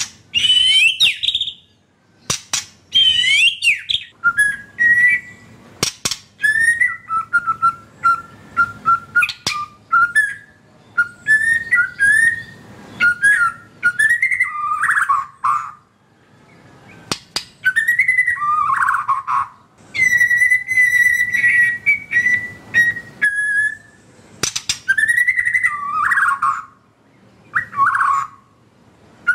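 White-rumped shama (murai batu) singing a long, varied song of clear whistled phrases that slide up and down in pitch. Sharp clicking notes are mixed in, and there are short pauses between phrases.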